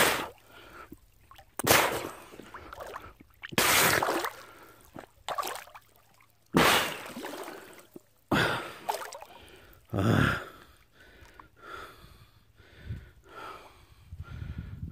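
A man breathing hard while wading through shallow water, loud gasping breaths about every two seconds, then quieter and quicker breathing over the last few seconds.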